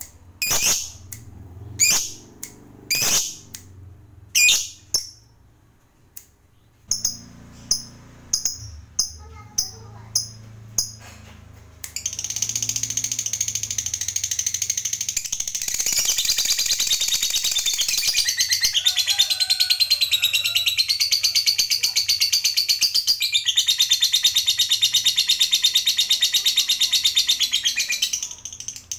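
Masked lovebird calling: a few sharp single shrieks, then softer short chirps about two a second, then a long, very rapid chattering trill (the 'ngekek panjang' prized by lovebird keepers). The trill runs unbroken for about sixteen seconds and breaks off near the end.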